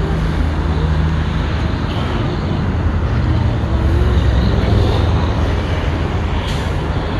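Road traffic: vehicle engines running with a steady low rumble, growing louder around the middle as a heavier vehicle goes by.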